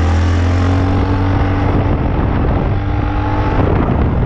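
Four-wheeler (ATV) engine running as the quad drives along, a steady low drone whose pitch shifts slightly early on.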